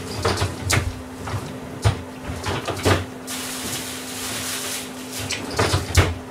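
Kitchen handling clatter: irregular knocks and clicks of things being moved and set down, the loudest just before the end, with a few seconds of hiss in the middle and a steady low hum underneath.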